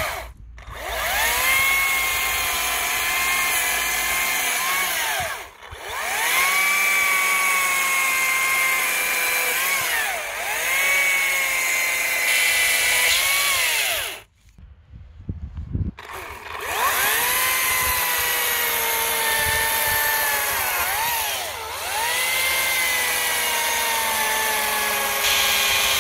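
Makita DUC254 cordless electric chainsaw running in long bursts: a steady motor whine whose pitch sags and picks back up as the chain cuts through branches. It stops briefly a few times, and for about two seconds a little past halfway.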